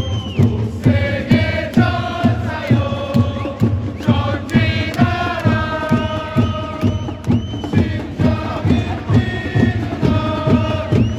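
Football supporters in the stands singing a chant together in unison over a steady, evenly paced bass drum beat.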